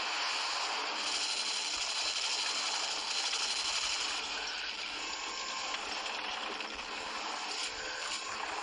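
Steady mechanical clatter and whirring of a remote-controlled toy tank's small motors and plastic gears, easing off slightly about halfway through.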